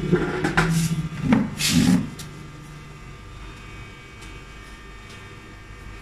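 Short scraping strokes and clicks on a machined aluminium plate as its burrs are taken off, with a couple of knocks as it is handled and set down on a metal tool cart, all in the first two seconds. A steady low hum fades out about three seconds in.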